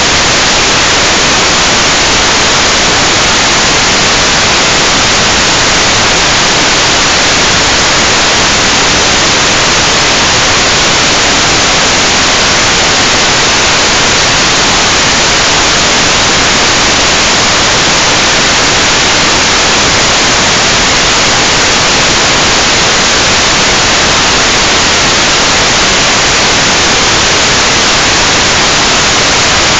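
Loud, steady static hiss from an analog FPV video link's receiver picking up no signal from the quad.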